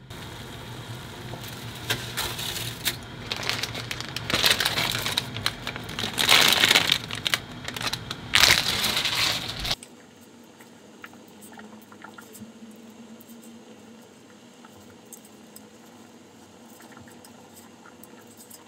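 Crinkling and rustling of handled material in bursts, loudest about four and a half, six and a half and eight and a half seconds in, cutting off abruptly about ten seconds in. After that only a few faint, light clicks.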